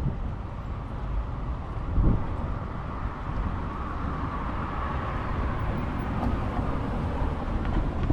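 BNSF manifest freight train's cars rolling past close by: a steady low rumble of wheels on rail, with one heavy knock about two seconds in and a faint higher hum that swells and fades in the middle.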